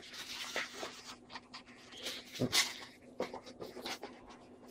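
Hands handling a small cardboard box and paper leaflets: rustling and scraping with scattered light knocks, the loudest about two and a half seconds in.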